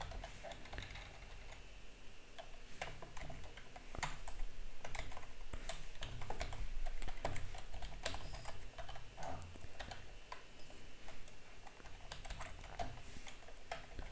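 Typing on a computer keyboard: irregular runs of key clicks with short pauses, as code is entered.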